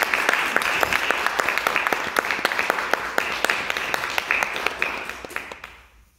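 Audience applauding, with individual claps standing out sharply; the applause dies away near the end.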